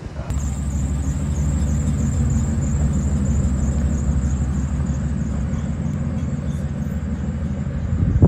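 A steady low engine hum, like a motor vehicle idling, that cuts in abruptly just after the start.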